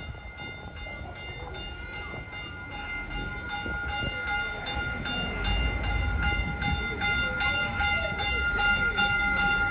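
Caltrain Stadler electric multiple unit pulling into the station, its low rumble growing louder about halfway through. Over it, a steady ringing with regular strikes about three times a second.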